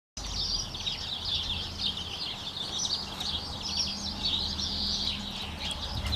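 Small birds chirping and singing in a busy, overlapping chorus of high chirps, over a faint steady low hum.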